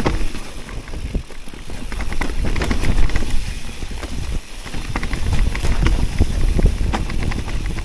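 Electric mountain bike rolling down a wet, leaf-covered trail: tyres crunching over leaves and the bike rattling with many quick clicks and knocks, over a low rumble of wind on the microphone.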